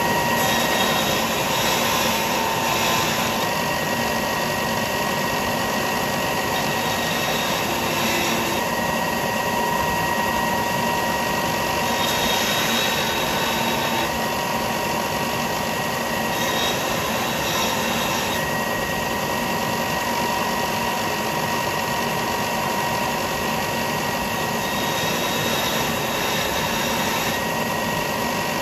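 Belt sander running steadily with a motor whine while the edge of a sheet-steel pipe cone is ground flat and square against the belt. The grinding hiss swells several times as the piece is pressed on and eased off.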